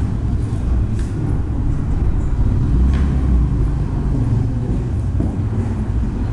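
Loud low rumble of outdoor street noise, like traffic, with a couple of faint clicks.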